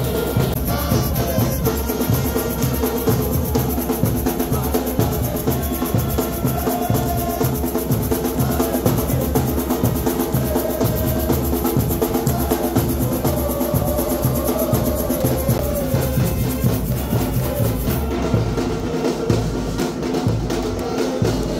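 Music with a steady drum beat under a melodic line; near the end the sound becomes duller, losing its high end.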